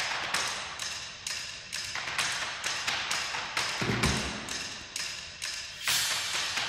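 Suspense film score: a steady ticking beat of sharp clicks, a little over two a second, with one deep low hit about four seconds in.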